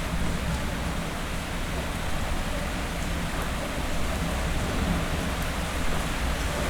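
Heavy rain falling steadily: a dense, even hiss with scattered drops ticking close by, over a low steady rumble.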